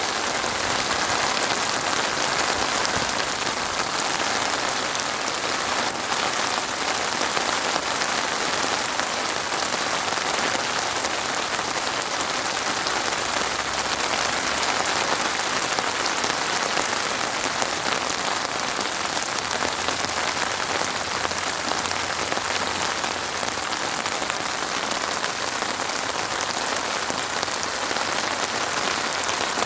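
Steady rain falling, a dense even hiss of drops pattering on surfaces.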